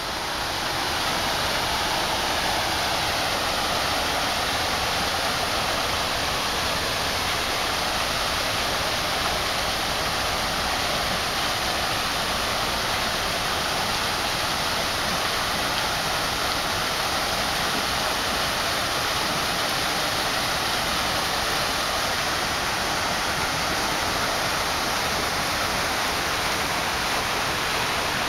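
Water pouring from a fountain's ledge into a shallow pool, a steady rushing splash.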